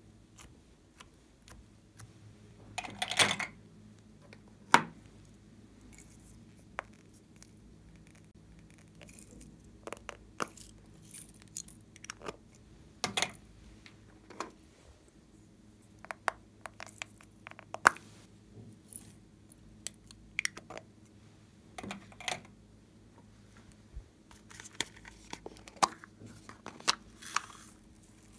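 Scattered clicks, taps and short rustles of plastic sequin confetti being sprinkled onto slime in a clear plastic box, and of small plastic containers being handled. The loudest are a brief rustle about three seconds in and a sharp tap soon after.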